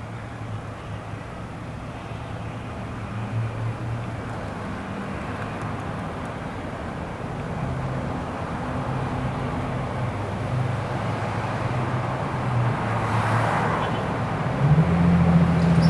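Motor vehicle traffic: a vehicle engine hums under a steady road noise and grows louder near the end.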